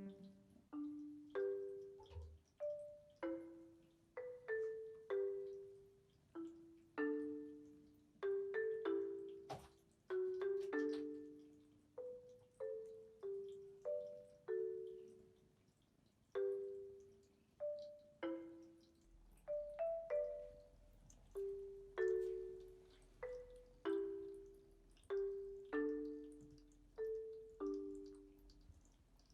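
Background music: a slow, gentle melody of single notes struck on a marimba-like mallet instrument, each note ringing briefly and fading, about one to two notes a second.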